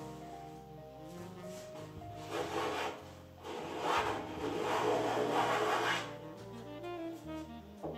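Small hand block plane shaving along the edge of an oak-veneered panel in repeated strokes, a dry scraping, over background music.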